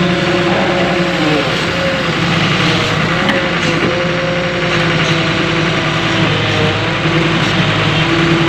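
Volvo EW130 wheeled excavator's diesel engine and hydraulics running steadily under digging load, with a whine that shifts in pitch as the boom and bucket move.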